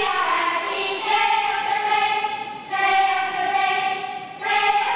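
A group of children singing together in unison, in long held notes that change about every one and a half seconds.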